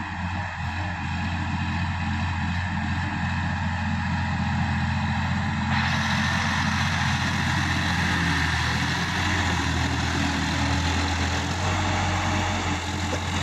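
Sonalika tractor's diesel engine running steadily under load while driving a rotary tiller through the soil, a constant low engine hum with a dense churning noise over it.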